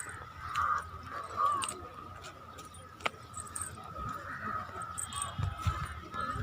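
Faint background voices of people murmuring, with a sharp click about three seconds in and low rumbling near the end.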